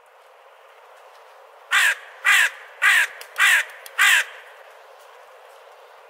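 A crow cawing five times in an even run, the caws a little over half a second apart, starting about two seconds in. A steady faint hiss lies underneath.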